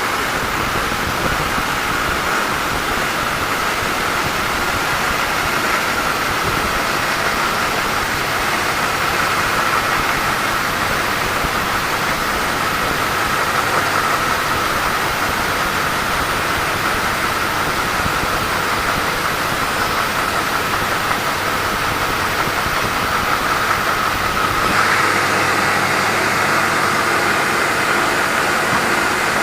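Sawmill saw running steadily through a teak log, a loud mechanical noise with a steady whine over hiss; about 25 seconds in the sound changes, the whine shifting a little higher.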